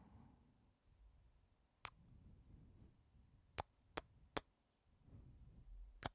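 Kisses close to the microphone: five short, sharp lip smacks, one about two seconds in, three in quick succession in the middle, and one near the end, with faint breaths between them.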